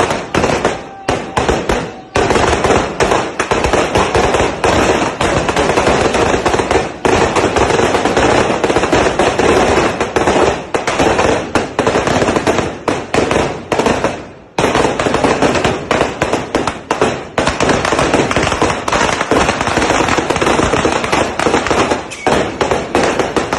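A 3000-round Phoenix Thunder firecracker string (sawa) going off in a dense, continuous crackle of rapid bangs. There is a brief lull about fourteen seconds in before it carries on.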